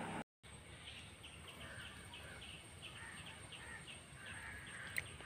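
Faint outdoor background with a small bird chirping, short calls repeated about two to three times a second, and a single click near the end.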